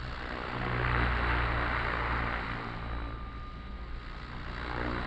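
OMP Hobby M1 mini RC helicopter in flight: the steady whir of its brushless direct-drive main and tail rotors, swelling louder about a second in and again near the end.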